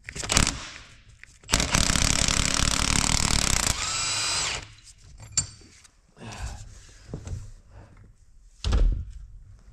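Power impact wrench hammering on a fastener on an engine's cylinder head for about two seconds, then spinning on with a rising whine. A few knocks and one heavy thump follow near the end.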